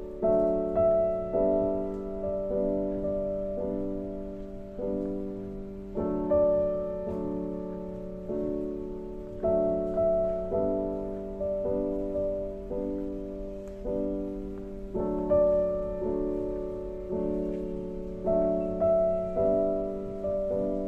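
Slow solo piano music: chords and single notes struck about once a second, each ringing out and fading before the next.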